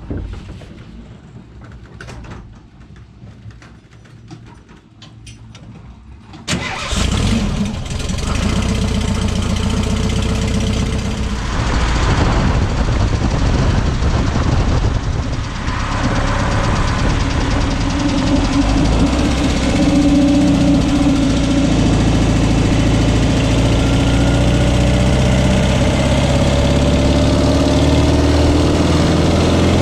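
Scattered light clicks, then about six and a half seconds in the air-cooled flat-four engine of a Volkswagen Bay Window bus comes in suddenly and keeps running loudly as the bus drives, with tyre and road noise. Later its pitch rises as it accelerates.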